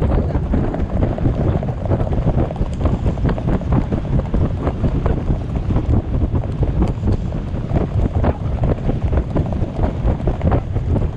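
Strong wind buffeting the microphone of a camera carried on a horse moving fast along a sand beach, with a rapid run of sharp clicks and thuds mixed in from the horses' hooves and tack.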